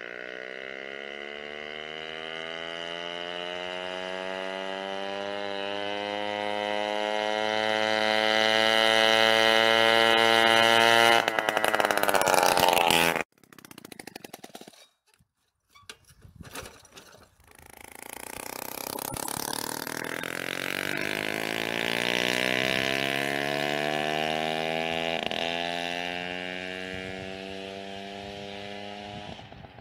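Peugeot 103 Vogue moped's 49 cc two-stroke single-cylinder engine running with no exhaust pipe fitted, climbing in pitch and loudness as it accelerates toward the listener, then cutting off abruptly a little under halfway. After a few quiet seconds it is heard again, rising in pitch as it comes closer, then fading away.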